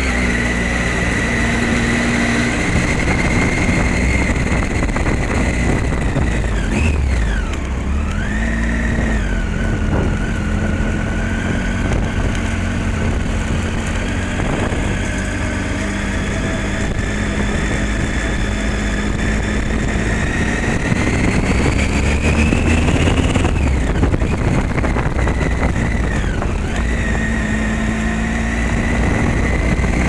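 Motorcycle engine running under way on a cobbled road, its pitch falling and climbing again several times as the bike slows into and pulls out of hairpin bends.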